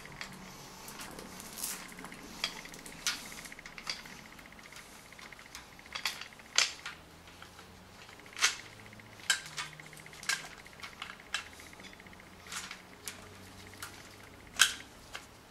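Steel timing chain links clinking as the chain is handled and fitted at the front of an engine block: scattered, irregular light metallic clicks, about a dozen and a half, with one louder clink near the end.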